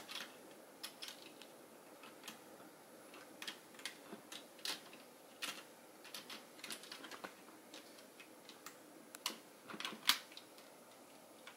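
Hard plastic LEGO parts of the Voltron robot model clicking and knocking as it is handled and its lion-limbs adjusted. The clicks come irregularly, one or two at a time, the loudest about ten seconds in.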